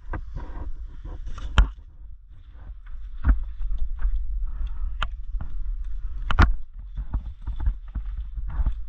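Irregular sharp knocks and clicks, about half a dozen, over a steady low rumble, typical of gear and movement noise on a body-worn camera during an airsoft game.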